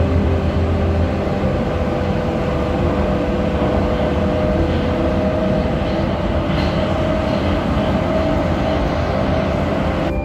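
Prague metro train running, heard from inside the passenger car: a steady rumble of wheels and running gear with a humming tone.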